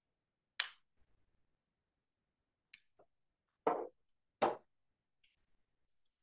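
About six short, sharp clicks and taps scattered through a near-silent pause, the two loudest coming close together a little past the middle.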